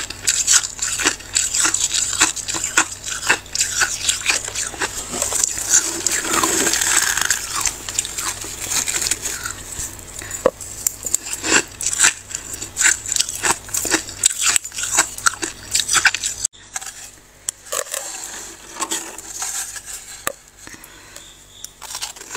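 Thick freezer frost being scraped and broken up: rapid, irregular crunching. The crunching breaks off for a moment about two-thirds of the way through, then carries on more quietly.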